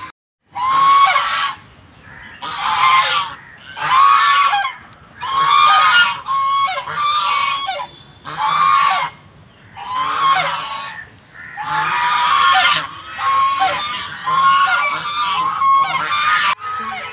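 Domestic geese honking loudly and repeatedly, in bouts about a second long, one after another.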